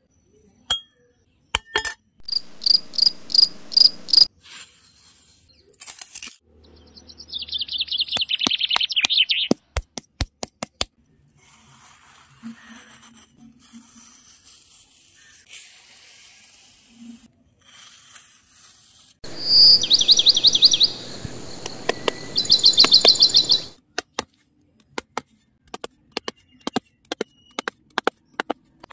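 A small trowel scraping and cutting through damp packed sand, with many sharp taps and clicks. Short, rapid, high chirping trills come in several times in the background.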